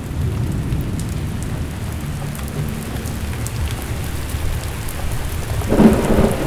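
Steady heavy rain with a low rumble of thunder underneath. A louder crack comes near the end.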